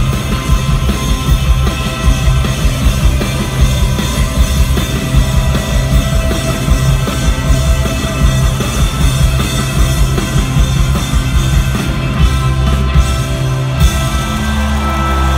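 Rock band playing live in an arena, a full band with drum kit driving a steady beat. Near the end the drums stop and a held chord rings on.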